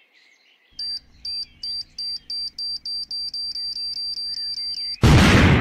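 Intro sound effect: a high electronic beep repeating faster and faster over a steady low drone, then a loud burst of noise about five seconds in that fades over a second or so.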